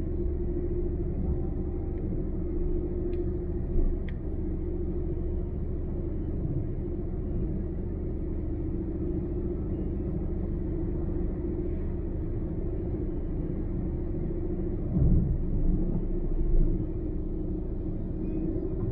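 Car driving at highway speed: a steady low rumble of engine and tyre noise with a constant drone. A few bumps thud through about fifteen to seventeen seconds in.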